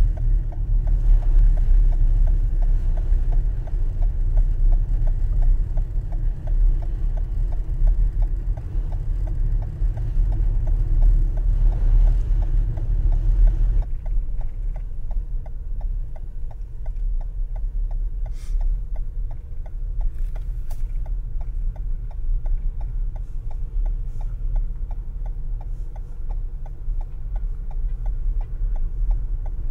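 A vehicle's hazard-light flasher clicking fast and evenly, about two to three clicks a second, over a steady low rumble.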